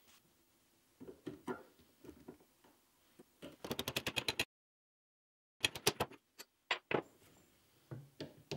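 Metal clicks and clinks as parts are fitted to a Land Rover gearbox main shaft with pliers and by hand. Scattered clicks build to a quick run of rapid clicks about halfway, the sound cuts out for about a second, then more clicks and a couple of knocks follow near the end.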